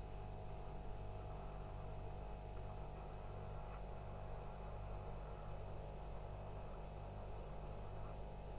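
Faint, steady electrical hum, with a few thin higher tones and a light hiss over it. It does not change.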